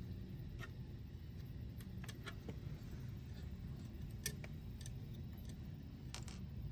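Scattered small metallic clicks and ticks, the loudest about four seconds in and a quick cluster near the end, as a 2mm hex driver works the mounting screws of a circuit board on a stepper motor. A steady low hum runs underneath.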